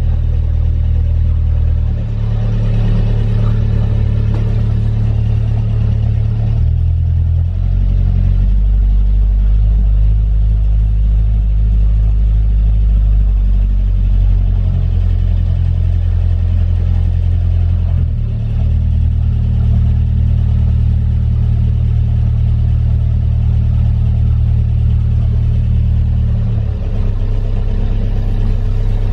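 Albin 25's inboard diesel engine running, a steady low drone that shifts in pitch several times as the throttle is changed, dropping lower near the end as the revs come down from about 1,700 toward 1,000 rpm.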